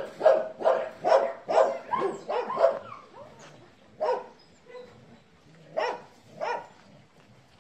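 Dog barking: a quick run of sharp barks, about three a second, for the first three seconds, then a few single barks spaced out.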